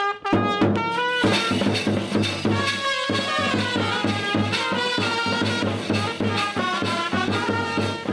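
Brass band playing a lively dance tune: trumpets carry the melody over a steady beat of large bass drums, which come in just after the start.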